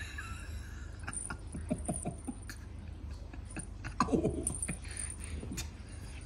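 Scuffling and scratching of a Siamese cat play-fighting with a hand on a couch: quick irregular taps and rustles with a few short soft vocal sounds, busiest about four seconds in, over a low steady hum.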